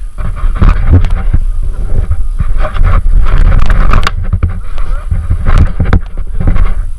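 Sled sliding down a snowy slope, rumbling and scraping over the snow in uneven surges, with children's voices over it.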